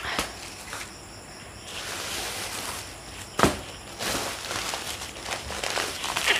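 Plastic bags and grocery packets crinkling and rustling as they are handled, with small clicks and one sharp tap about halfway through.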